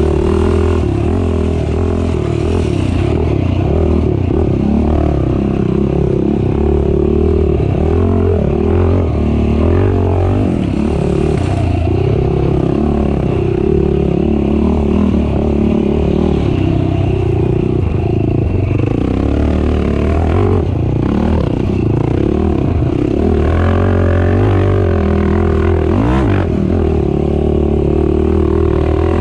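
Racing ATV engine running hard, its pitch rising and falling constantly as the throttle is worked, with a couple of short knocks near the end.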